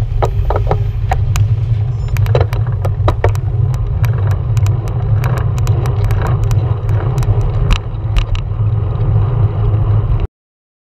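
Steady low rumble of wind and road noise on a bicycle-mounted action camera's microphone while riding in traffic, with frequent sharp clicks and rattles. It cuts off suddenly near the end.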